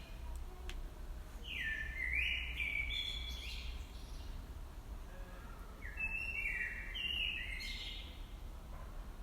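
A small songbird singing two short phrases of clear stepped notes, one starting about a second and a half in and another about six seconds in, over a steady low rumble.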